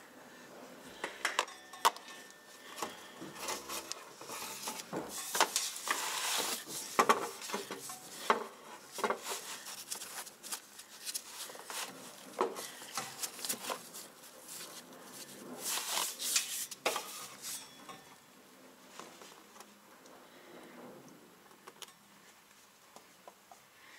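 Gloved hands working a clear plastic fluid hose into the transfer case fill port: irregular rustling and scraping with light clicks and clinks. It is busiest a few seconds in and again past the middle, and quieter for the last several seconds.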